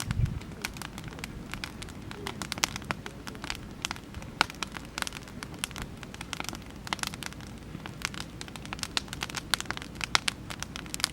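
Oak-wood campfire crackling, with frequent irregular sharp pops and snaps. A brief low thump comes right at the start.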